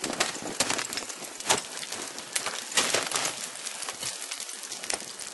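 Crampons kicking into and scraping on frozen-waterfall ice: irregular sharp crunching knocks, several a second, loudest about a second and a half in and again near three seconds.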